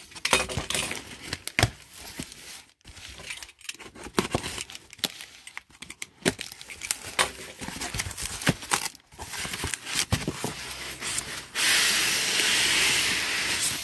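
Utility knife slicing through packing tape and cardboard, with irregular scrapes, rustles and clicks as the box flaps are handled. About twelve seconds in, a steady, louder scraping rush as a styrofoam-packed item is slid out of the cardboard box.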